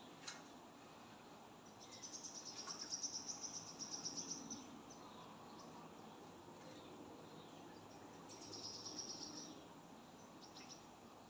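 A high, rapid pulsed trill from an animal, heard twice: a longer one about two seconds in and a shorter one near the end, over faint outdoor background, with a brief click at the start.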